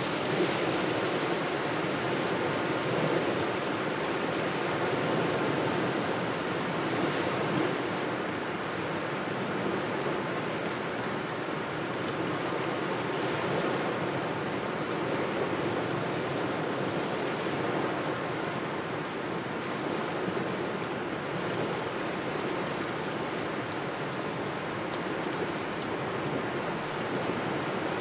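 Small waves washing onto the shore with cold wind blowing. A steady rush of water and wind that swells and eases every few seconds.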